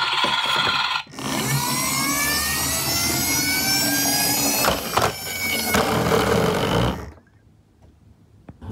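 Toy garbage truck's built-in sound effect playing a truck engine revving, its pitch climbing steadily; it starts abruptly about a second in and cuts off after about six seconds.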